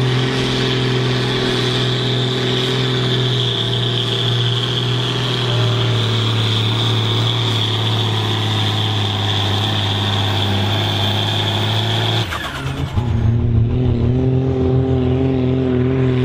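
Ford TW-25 tractor's turbocharged six-cylinder diesel running flat out under full load while pulling a sled, with a steady high whine over the engine note; the engine pulls down slightly partway through. About twelve seconds in the sound cuts abruptly to another full-load pull.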